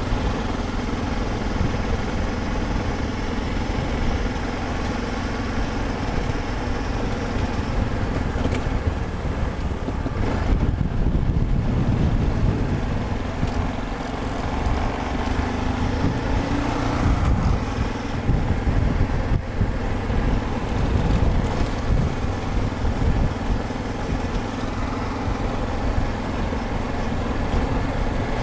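Yamaha XT 660Z Ténéré's single-cylinder engine running steadily as the motorcycle is ridden at an easy pace on a dirt road. Its note climbs briefly a little past halfway, then settles back.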